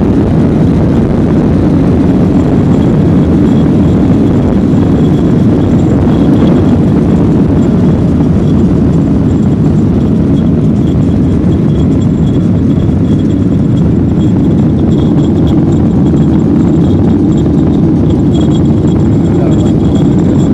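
Boeing 737-800's CFM56 turbofan engines at takeoff thrust, heard from inside the cabin: a loud, steady rumble with a faint high whine running through it, during the takeoff roll and climb-out.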